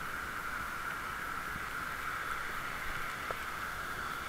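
Steady hiss of a bicycle riding along a wet road, with a couple of faint clicks.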